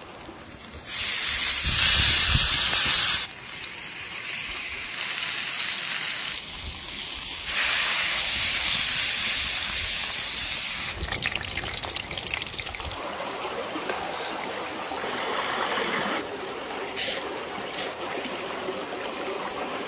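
Loud sizzling hiss of a thick bone-in steak frying in butter on a cast-iron griddle, coming in blocks. In the last several seconds, a steady rushing of a shallow stream running over rocks.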